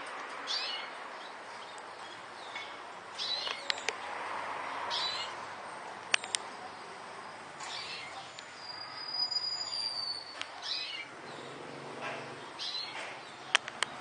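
Caged Yorkshire canaries giving scattered short chirps and calls, with one longer whistled note about nine seconds in. A few sharp clicks, the loudest near the end.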